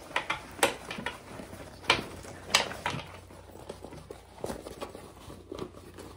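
A small sewn fabric backpack being handled and turned right side out through its zipper: rustling and crinkling of the fabric with a few sharp clicks and taps, most in the first three seconds.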